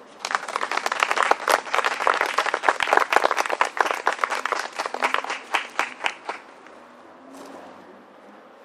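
Audience applauding with dense, irregular clapping that dies away about six seconds in.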